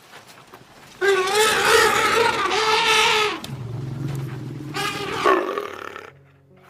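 An animal's loud, pitched call with a wavering pitch, lasting about two seconds from a second in, followed by a lower steady tone and a shorter second call about five seconds in.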